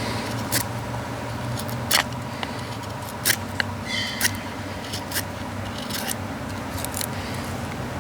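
Knife spine scraped down a ferrocerium rod (fire steel), striking sparks in a series of short, sharp scrapes at irregular intervals, over a steady low hum.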